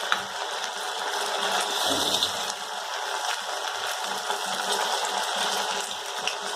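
Sabudana vadas deep-frying in hot oil: a steady sizzle with small crackling pops.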